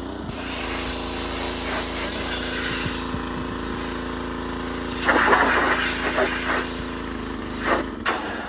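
Gasoline pressure washer running, its small engine humming steadily under the hiss of the water spray, with a louder spell of spray noise a little past halfway. Near the end the engine cuts out as it runs out of gas.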